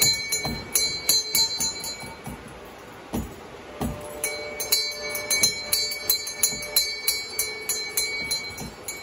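A swinging brass bell clanging rapidly, its clapper striking about four to five times a second with a ringing tone after each stroke. The ringing stops for about two seconds, with a couple of dull knocks, then resumes.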